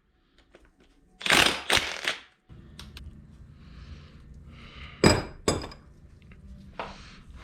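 Metal tools and engine parts clinking and knocking during work on an engine's connecting-rod caps. A louder clatter comes about a second in, then several separate sharp clinks, the loudest about five seconds in.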